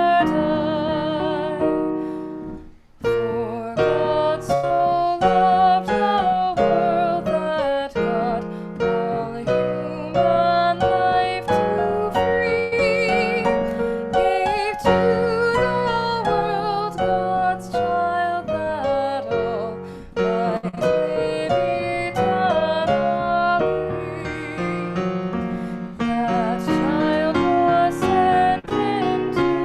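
Piano-accompanied music with a melody line that wavers in vibrato, broken by a brief pause about three seconds in.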